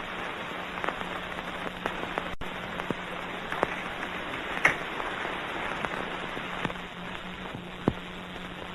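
Surface noise of an old film soundtrack: steady hiss and a low hum, with scattered crackles and pops. There is a brief dropout about two and a half seconds in.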